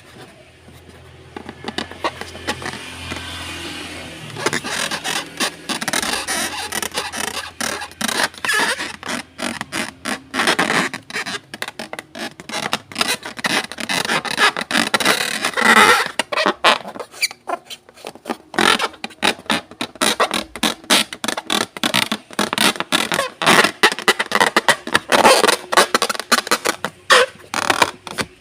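Slime being squished and worked by hand, giving a dense, irregular run of wet clicks and crackles that becomes much busier about four seconds in.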